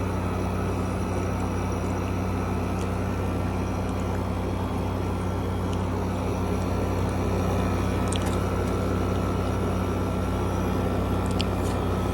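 2016 Frigidaire window air conditioner running: a steady low hum with the even rush of its fan, and a few faint ticks.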